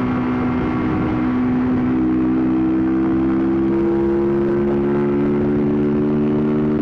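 Honda CBR125R's single-cylinder four-stroke engine pulling steadily at road speed in one gear, its pitch rising slowly through the second half as the bike gathers speed, over wind noise on the helmet mic.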